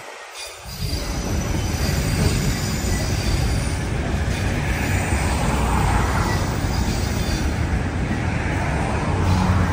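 Container freight train's flat wagons rolling past on the rails: a steady heavy rumble of wheels on track that grows louder about a second in, with a faint, thin, high wheel squeal over the first few seconds.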